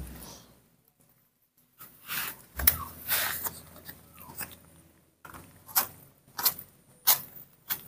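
Baby monkeys eating cut fruit from a plastic plate on a bamboo mat: soft rustling and handling noises with a string of short sharp clicks and taps, spaced well under a second apart in the second half.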